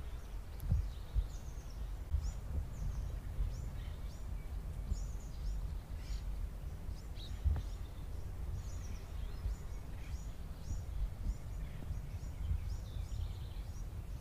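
Small birds chirping in short, high, repeated calls over a steady low rumble.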